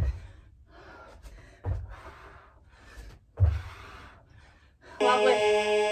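Three jump landings on the floor about a second and a half apart, each with a sharp exhale, from heel-tap squat jumps. About five seconds in, a flat, buzzy electronic interval-timer tone sounds for about a second, marking the end of the 30-second work interval.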